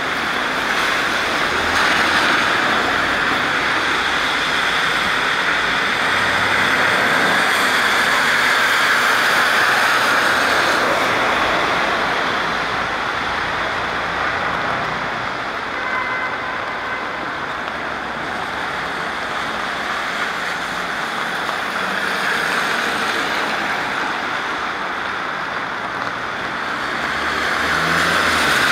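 Cars driving past on a rain-soaked street, their tyres hissing on the wet road, over steady rain. The hiss swells and fades as each vehicle goes by.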